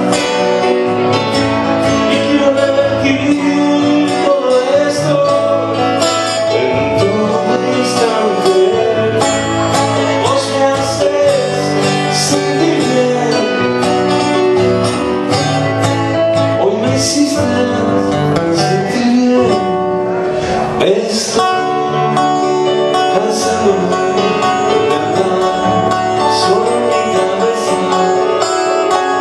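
Live music: a strummed acoustic guitar with a man singing into a microphone.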